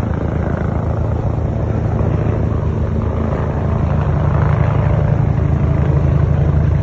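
Helicopter's rotor and turbine running close by with a fast, steady rotor beat, growing a little louder about four seconds in.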